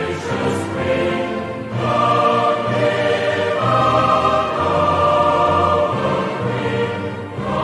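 Music: sustained choral voices with orchestral backing, held chords that change every second or two.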